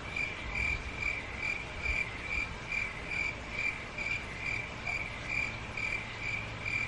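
Cricket chirping in a steady, even rhythm, a little over two chirps a second: the comedy 'crickets' sound effect for an awkward silence while someone thinks.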